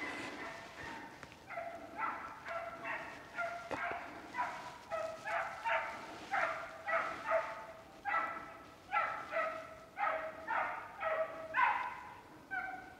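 Hunting dog giving tongue in a driven boar hunt: a steady run of short barks, about two a second, the sign it is on the scent of game and pushing it through the cover.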